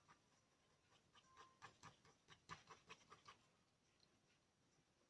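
Faint pencil strokes scratching on paper: a quick run of short strokes from about a second in to just past three seconds.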